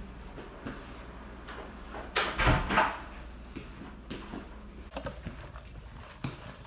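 Footsteps and knocks in a small room, with a louder scuffing burst about two seconds in, then clunks and rubbing as the camera is picked up and handled near the end.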